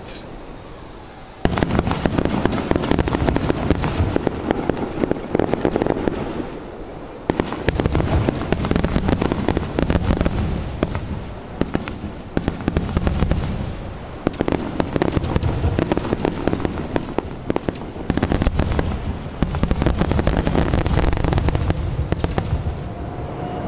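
Aerial fireworks display: a dense barrage of shell bursts, booms and crackling. It starts suddenly about a second and a half in, has a brief lull around seven seconds, and eases off near the end.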